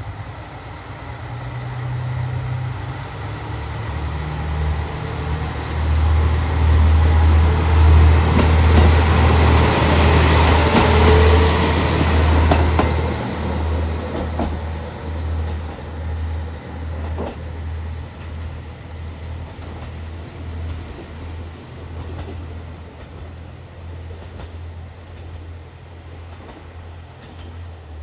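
KiHa 54 series diesel railcar running under power with a deep engine drone and wheel noise. It grows louder to a peak about ten seconds in as it goes past, then slowly fades as it draws away.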